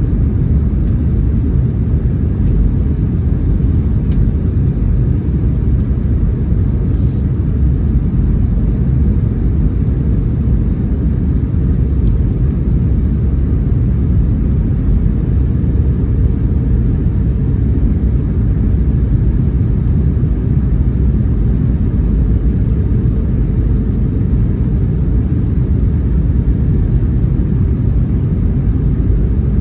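Steady cabin noise of an Airbus A321neo in flight: a constant low rumble of engines and airflow heard from inside the cabin, with a faint steady hum.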